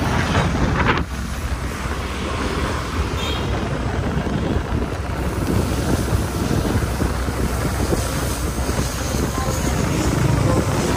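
Steady rush of wind buffeting the microphone on a moving motorbike, with the motorbike running beneath it.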